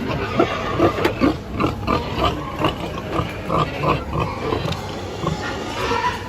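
Pigs calling in a quick run of short grunts and squeals, two or three a second, over a steady background hiss.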